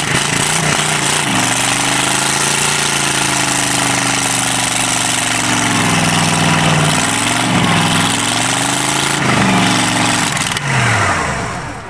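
Chevy 305 small-block V8 of an old front-end loader running just after a cold start in freezing weather, following months of sitting. Its revs rise and fall several times, then drop away near the end.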